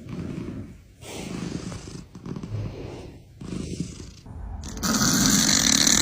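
Domestic cat snoring: about five rough, rasping breaths, roughly one a second, the last and loudest, about five seconds in, with a strong hiss.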